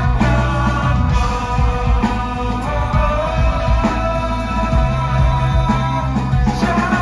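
Live rock band playing, with drum hits over a steady low bass and sustained chords.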